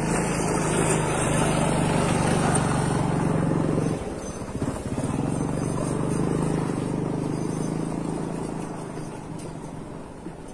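A small engine running steadily with a low hum. It dips about four seconds in, comes back, then fades toward the end.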